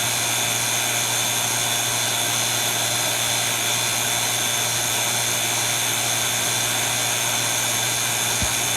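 Refrigeration vacuum pump running steadily with an even motor hum, evacuating the AC system to pull out air and moisture before it is charged with R-410A.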